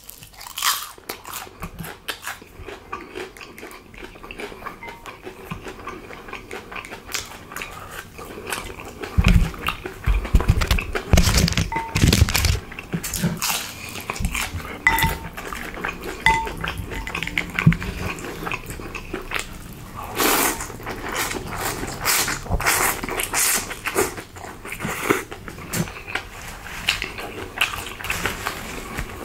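Close-miked crunching and chewing of food, a dense run of crackles and clicks that grows busier and heavier partway through. A few short, clear clinks, like a utensil touching a bowl, ring out in the middle.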